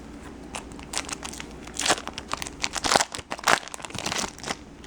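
Foil wrapper of a Bowman Chrome baseball card pack crinkling and tearing as it is ripped open by hand: a quick run of sharp crackles, loudest in the middle.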